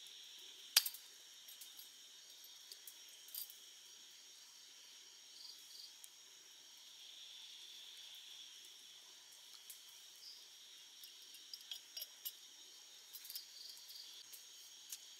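Night insects, crickets, chirring steadily and faintly in high tones. A sharp click about a second in as a swing-top bottle's cap is flipped open, a soft trickle in the middle as fish sauce is poured into a mortar, and scattered small clicks and clinks toward the end.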